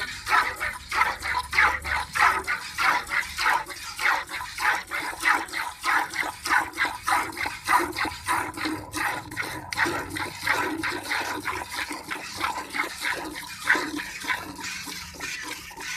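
A cow being milked by hand: rhythmic jets of milk squirting into a pail, about three squirts a second.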